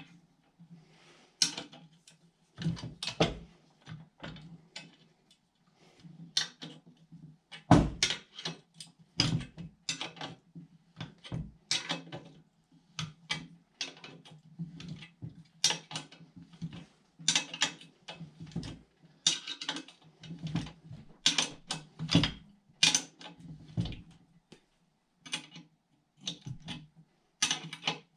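An 11/16 wrench tightening steel bolts on a trimmer rack's engine-mount bracket: a long run of irregular metal clicks and clinks, some sharper knocks among them, over a low steady hum.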